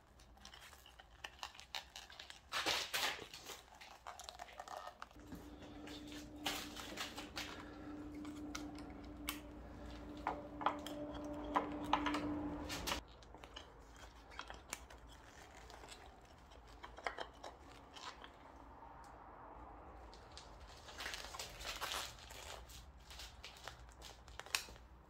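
Scattered clicks, scrapes and rubbing as a motorcycle speedometer gauge is pried and worked out of its tight rubber seal. A steady hum comes in about five seconds in and stops some eight seconds later.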